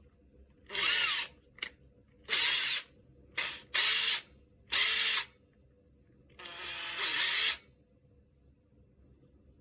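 Makita TD146D 18V cordless impact driver's motor running free in about six short trigger bursts, each spinning up and winding down, the last one longer, starting slow and then speeding up. The driver runs only some of the time, a fault the owner puts down to the trigger switch.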